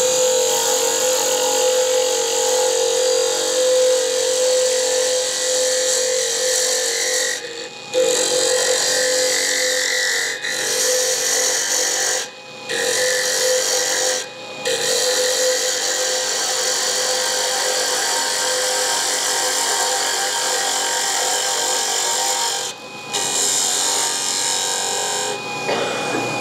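Wood lathe running while a hand-held turning tool cuts a spinning stabilized pen blank, which is very hard: a steady rasping cutting noise over a constant motor tone. The noise drops out briefly four times.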